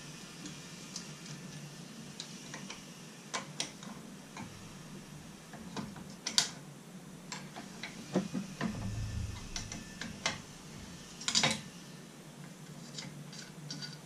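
Irregular small metal clicks and taps of hand tools and loose parts as the front plate is worked off an outboard motor's powerhead, with a few sharper clacks among them.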